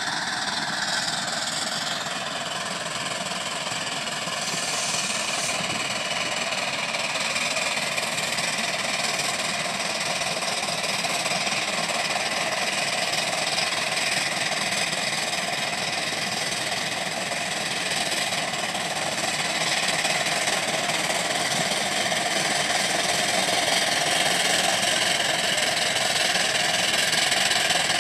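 1907 Avery 18 horsepower undermounted steam traction engine working hard under load, pulling a plow, its running sound getting gradually louder as it comes closer.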